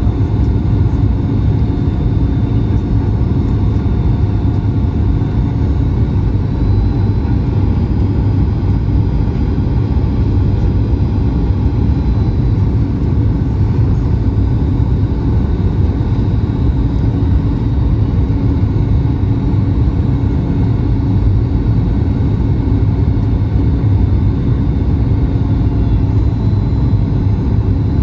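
Steady cabin noise inside a Boeing 737 MAX 8 airliner in flight: a low rumble of airflow and its CFM LEAP-1B turbofan engines, with a faint steady whine above it.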